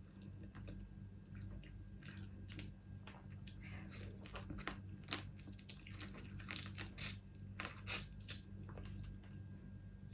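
Close-miked eating of crab: chewing and biting with small crunches and shell clicks at irregular intervals, a few louder cracks among them.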